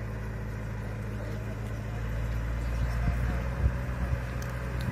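Submersible launch tractor's engine running steadily under load as it hauls the lifeboat carriage through shallow water, with a few louder low thumps a few seconds in.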